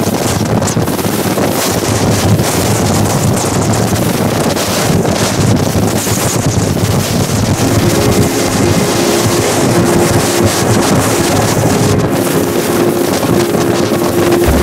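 Center-console boat under way at speed: wind buffeting the microphone over the rush of the hull through the water and the outboard engines running. A steady hum joins in about halfway through.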